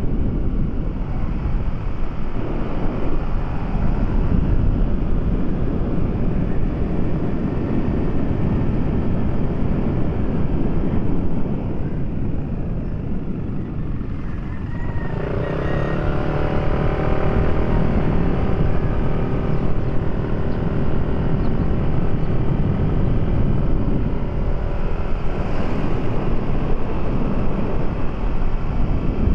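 A moving vehicle's engine running along with steady wind and road noise. About halfway through, a clearer pitched engine hum comes in and holds.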